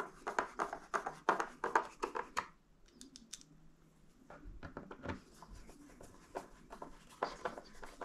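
Screws being fitted and tightened into the plastic housing of a Bissell PowerForce Helix upright vacuum: rapid small clicks and scrapes in two spells, with a lull about halfway.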